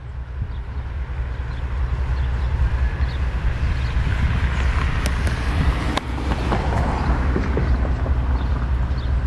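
Norfolk Southern freight train's diesel locomotives approaching and drawing close: a steady deep engine rumble that grows louder over the first few seconds, then holds. A couple of sharp clicks come about halfway through.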